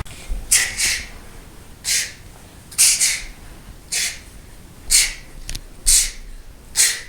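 A boy's sharp, hissing exhales with each strike of a karate routine, roughly one a second and some in quick pairs.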